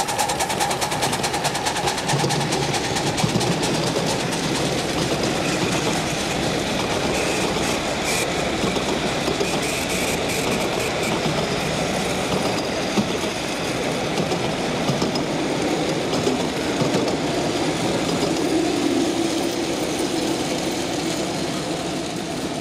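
Ride-on live-steam model of the Union Pacific 4-8-4 Northern 844 passing close by and working up the grade with passenger cars: a fast, steady steam exhaust beat over wheels clattering on the rails. It fades near the end as the train pulls away.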